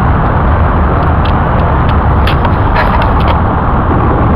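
Road traffic: a motor vehicle's engine running close by as a steady low rumble, with a few light clicks over it.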